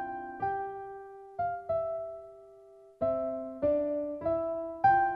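Background music: a slow electric-piano melody of single struck notes, each left to fade, about one or two a second.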